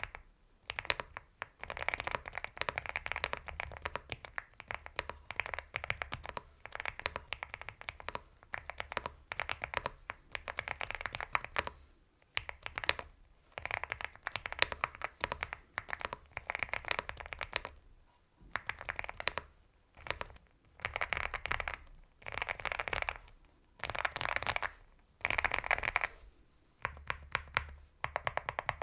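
Typing on a Leobog Hi75 mechanical keyboard with Gateron Oil King linear switches: rapid runs of keystrokes in bursts a second or two long, with short pauses between them.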